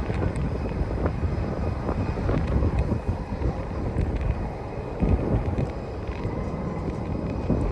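Jet airliner's engines running on landing approach, a steady rumble with a faint high whine, mixed with wind buffeting the phone's microphone.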